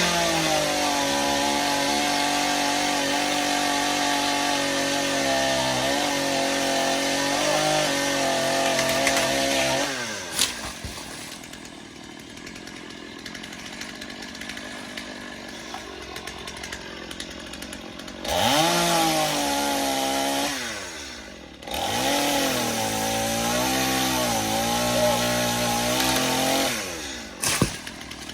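Chainsaw revved to full throttle and cutting wood for about ten seconds, its pitch dipping under load, then dropping to idle. It revs up for two more shorter cuts, and the pitch sags and wavers as the dull chain bogs in the pear wood.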